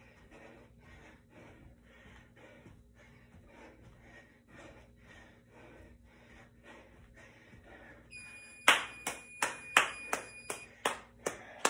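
Soft, quick thuds of jump landings on a carpeted floor, about two or three a second. About eight seconds in, a digital interval timer's alarm sounds as it reaches zero, and a man claps his hands sharply about seven times, louder than anything else.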